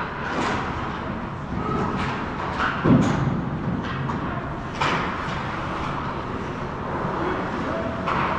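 Hockey play: scattered sharp clacks of sticks and puck, with a heavier thud about three seconds in, over a steady background noise.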